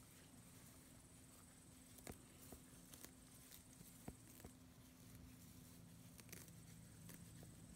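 Highland cattle calf cropping grass: faint, irregular clicks and rips as it tears and chews the blades, over near silence.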